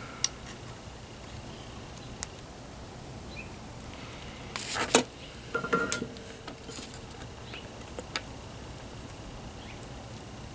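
Light handling noises of small electronic parts and a circuit board on a table: a few sharp isolated clicks and ticks, with a brief rustle a little past halfway.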